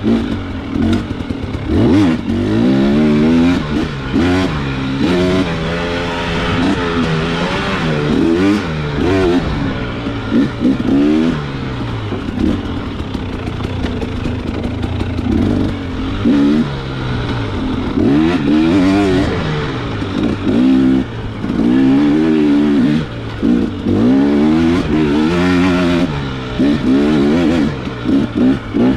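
Dirt bike engine revving up and falling back again and again, the pitch climbing and dropping every second or two as the rider works the throttle and gears on rough single track.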